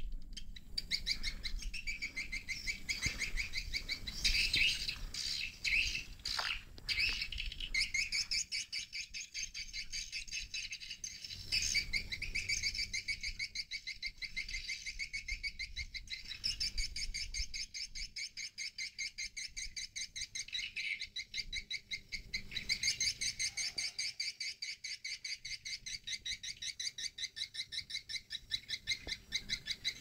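Swiftlet lure call: recorded swiftlet twittering played from a swiftlet house to draw the birds in, a fast, even train of high chirps that keeps repeating with a couple of short breaks.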